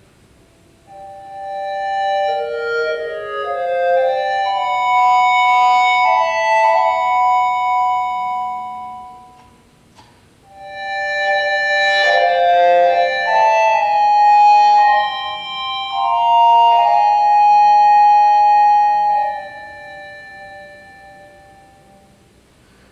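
Wind controller sounding through a Yamaha WT11 tone generator and loudspeakers: synthesized, sustained notes that overlap and step in pitch. The notes come in two phrases, the first starting about a second in and the second after a short break near the middle, and they die away near the end.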